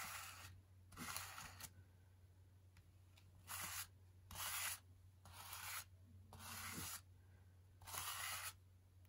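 Plastic scraper dragged across a stencil, scraping off excess thick modeling paste: about seven short, faint scraping strokes, each under a second, with pauses between.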